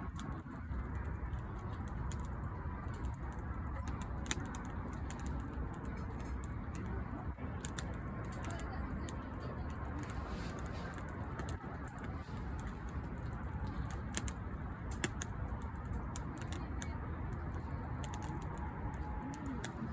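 Firewood burning in an outdoor fire pit: a steady low rush of the fire with scattered sharp crackles and pops from the burning logs.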